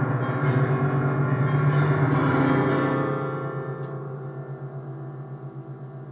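Electronic keyboard played in a dense, low-heavy chord cluster held with sustain, many notes ringing together; about halfway through the playing stops and the sound slowly dies away.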